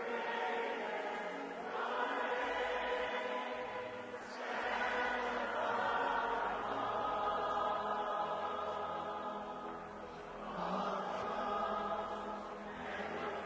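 Worship singing by many voices: long, sustained chant-like notes over music, swelling louder several times.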